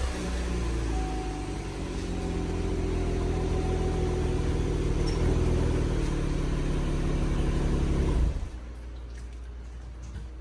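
2016 Chevrolet Camaro engine idling steadily just after a start, then dropping away sharply about eight seconds in.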